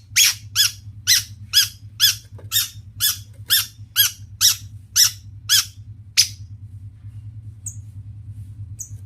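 Long-tailed shrike (cendet) giving a series of harsh, rasping calls, about two a second, that stop about six seconds in. Near the end come two brief high chirps. A steady low hum runs underneath.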